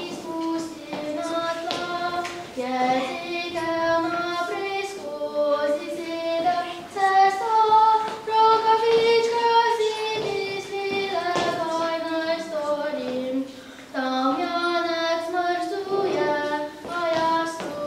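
A child's voice singing a melodic song with musical accompaniment, holding one long note about eight seconds in.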